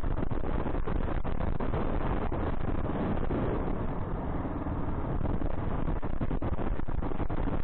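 Single-cylinder KLR 685 dual-sport motorcycle running steadily under way, with wind rushing over the microphone.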